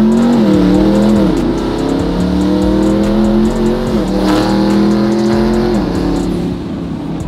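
Twin-turbocharged SRT 392's 6.4-litre HEMI V8 pulling hard under acceleration, its note climbing in pitch and dropping sharply at each upshift, three times.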